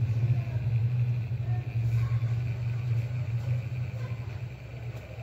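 Hot-air rework station blowing steadily, a low hum with a faint airy hiss, as its nozzle heats the pads of a small SMD audio amplifier IC (8002A) on a speaker circuit board.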